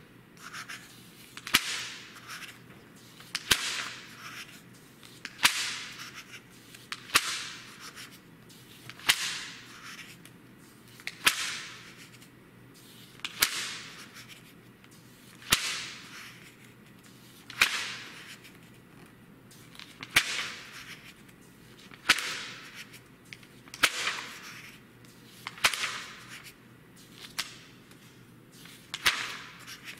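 Magazine pages turned by hand, one page about every two seconds, about fifteen turns in all. Each turn is a sharp paper snap followed by a swish.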